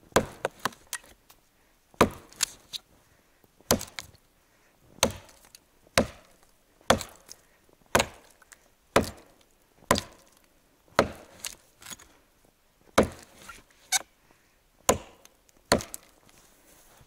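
Hand-forged Toporsib 'Burunduk' axe chopping into a felled tree trunk, bucking it through. Sharp blows of the blade into the wood come about once a second, a few of them in quick pairs.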